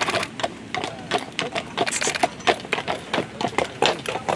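Hooves of a pair of draft horses clopping at a walk, several uneven clops a second.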